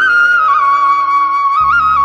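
Background music: a flute playing a slow melody of long held notes with quick ornamental turns, over a low sustained drone.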